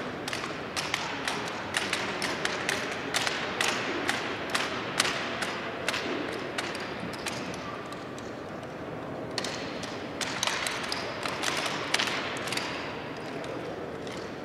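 Rifle drill team working M1903 Springfield rifles: a rapid, irregular run of sharp slaps and clacks as hands strike the wooden rifles and the rifles knock into position. There is a lull of about two seconds past the middle before another dense run.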